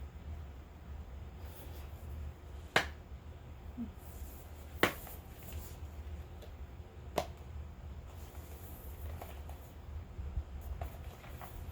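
Three sharp clicks about two seconds apart, with faint small ticks and rustles between them, as cosmetic products and their packaging are handled and set down. A steady low hum runs underneath.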